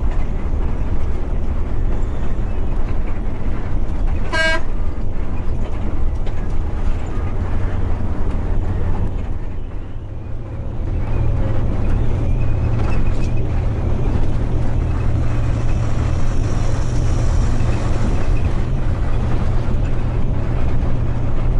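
Intercity bus engine running with road rumble, heard on board while the bus drives along, with one short horn toot about four seconds in. The engine note eases briefly near the middle, then settles into a steady hum.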